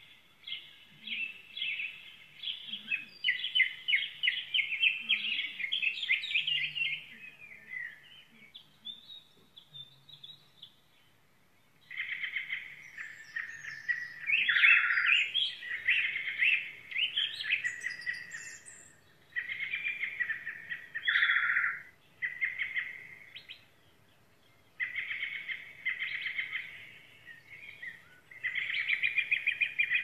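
Small songbirds chirping and twittering in bouts of rapid high notes a few seconds long, with short pauses between bouts.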